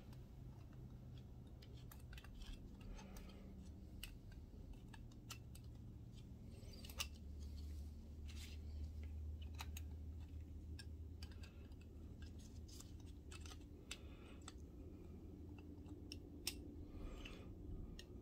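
Faint scattered clicks and light metallic taps as a metal bracket is handled and fitted onto a projector's aluminium optic assembly with a screwdriver.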